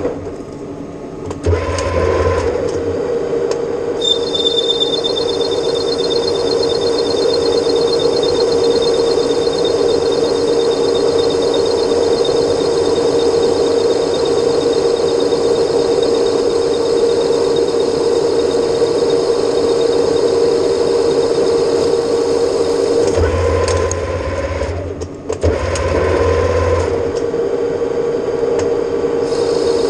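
Metal lathe running on stainless steel, a steady machine whine throughout. A thin high whine joins a few seconds in, and the running dips briefly about a second in and again near 25 seconds in.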